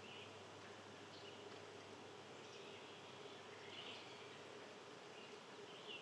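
Faint outdoor ambience: a steady low buzz under a soft hiss, with faint, short bird chirps about once a second.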